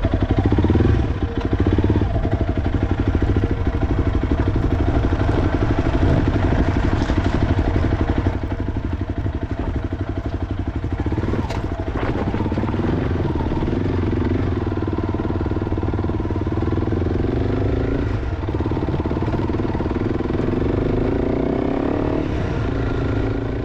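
Honda CRF300 Rally's single-cylinder engine running under way on a gravel forest track, its revs rising and falling with the throttle. The bike is fitted with an aftermarket exhaust.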